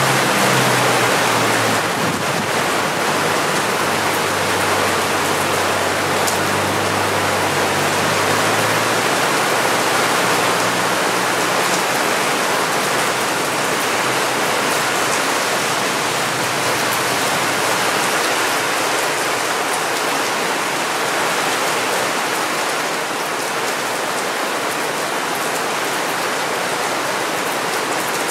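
Heavy downpour of rain pelting wet paving and standing water, a dense, steady hiss of countless splashing drops. A faint low hum runs underneath for the first nine seconds or so, then fades out.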